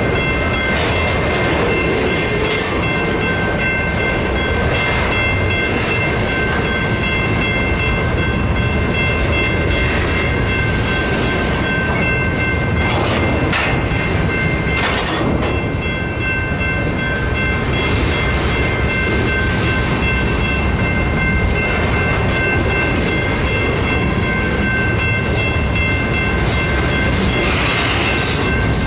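Freight train covered hopper cars rolling past close by, with a steady rumble and clickety-clack of wheels over the rail joints. Steady high-pitched squealing tones ride over the rumble, and a few sharper clanks come about ten to fifteen seconds in.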